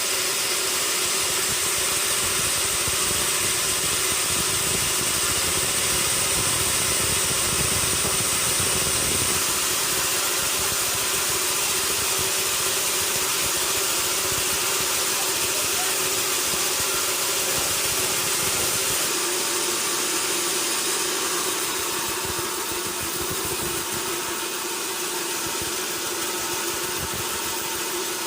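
Sawmill machinery running steadily, a constant mechanical hum under a high hiss. Its low rumble eases off about two-thirds of the way through.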